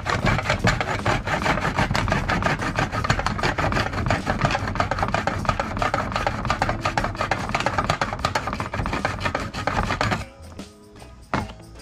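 Hand saw cutting through a plastic rib of a toolbox lid in quick back-and-forth strokes, a dense rasping that stops about ten seconds in. Background music plays underneath.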